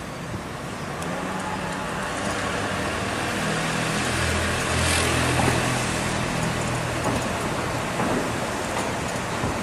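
Trieste–Opicina tram running along its track, heard from aboard: steady rolling noise with a low hum that swells about halfway through.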